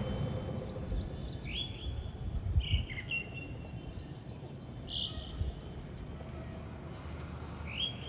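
Small birds chirping in short rising notes several times over a steady high-pitched insect drone, with some low rumbling in the first few seconds.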